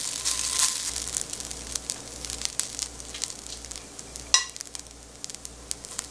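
Cooked rice sizzling and crackling as it is spooned into a hot, dry nonstick frying pan, the sizzle fading as the rice settles, with a metal spoon scraping and tapping. A sharp clink of the spoon a little past four seconds in.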